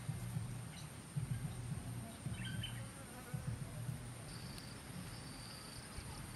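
An insect buzzing close by, low and uneven, over a steady high-pitched insect drone.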